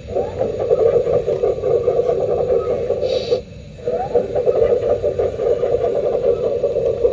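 RC excavator's electronic sound kit playing a simulated diesel engine through its small speaker: it revs up, drops out for a moment about three seconds in, then revs up again and runs on.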